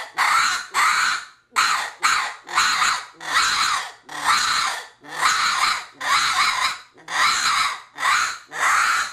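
Coon squaller reed call blown in short, rapid squalls, about two a second. The caller opens and closes his hand over the end of the call to shape each squall, imitating a raccoon in distress, as if caught and bitten by a dog.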